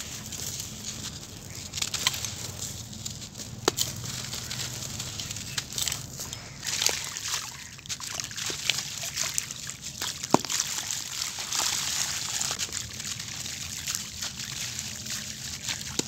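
Hands crushing clumps of dry sand-cement, the grit crunching with scattered sharp cracks, and, partway through, breaking clumps into a shallow puddle of water so that the crumbs splash and slosh.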